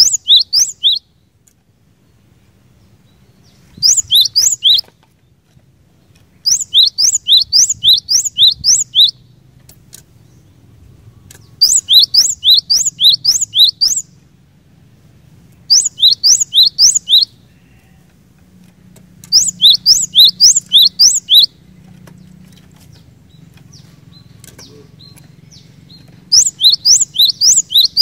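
Cinereous tit (glatik batu) singing: repeated bursts of quick, sharp rising notes, about six a second, each burst lasting a second or two with short pauses between.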